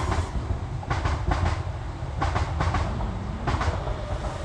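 Heavy wind rumble on the microphone, with several short gusty bursts, over the whine of a quadcopter's motors in flight; a steady motor tone comes in about three and a half seconds in.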